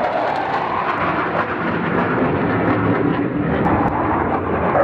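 Lockheed Martin A-4AR Fightinghawk jet flying overhead. Its Pratt & Whitney J52 turbojet makes a steady rushing jet noise, with a deeper rumble building toward the middle.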